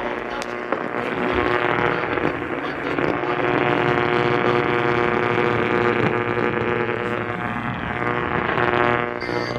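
A radio receiver putting out a steady, coarse buzz with many even overtones, with no voice or alert tones in it.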